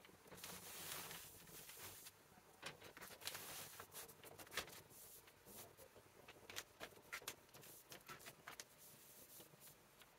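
Cotton T-shirt being shifted and smoothed by hand on a heat-press platen: faint fabric rustling for the first two seconds, then scattered soft brushing and small taps.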